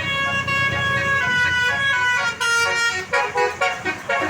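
Tour bus's Basuri 'telolet' multi-tone horn playing a tune: held musical notes that step up and down in pitch, breaking into a string of short quick notes in the second half, over a steady low engine hum.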